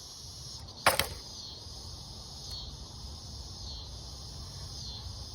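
Insects chirping steadily at a high pitch, with one sharp click about a second in.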